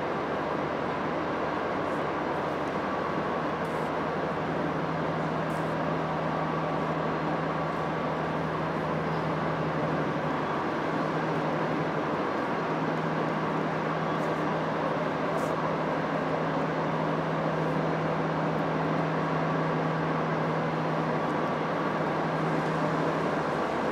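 Steady mechanical hum and background noise of a train station hall, with a low drone that sets in a few seconds in, breaks off briefly about halfway and stops near the end.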